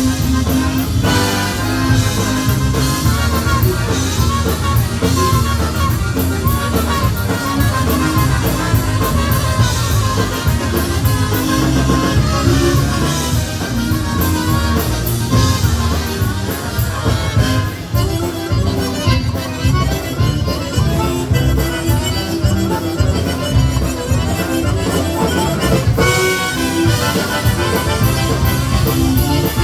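Chicago-style polka band playing an instrumental stretch of a polka: a squeezebox lead over bass and drum kit, with a new phrase coming in near the end.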